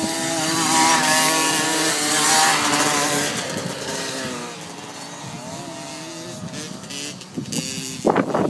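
KTM 50 youth dirt bike's small two-stroke engine revving as it rides past, its pitch rising and falling with the throttle, then fading and dropping in pitch as it pulls away.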